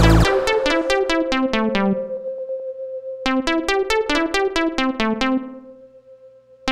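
Background music: a synthesizer keyboard playing a quick run of repeated notes without drums, dying away near the end.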